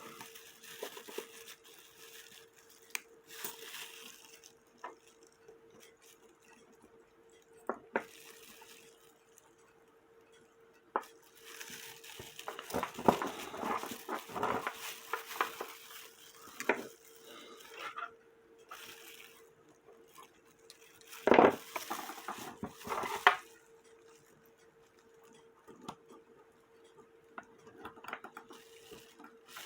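Small metal clicks, taps and scrapes of hands working on a cuckoo clock movement and bending its bird wire, with a louder clatter about two-thirds of the way through. A steady faint hum runs underneath.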